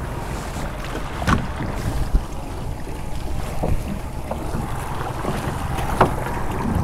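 Boat under way at trolling speed: a steady low rumble of outboard motor and water, with wind buffeting the microphone. A few sharp knocks break through, the loudest near the end.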